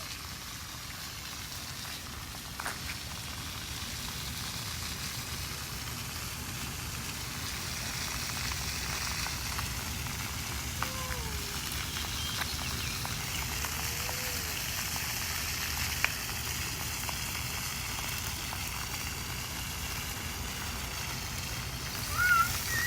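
Steady hiss of running water, growing a little louder after the first few seconds, with a couple of faint short chirps in the middle.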